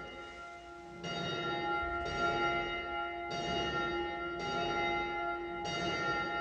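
A single church bell tolling, struck about once a second, with each stroke ringing on into the next.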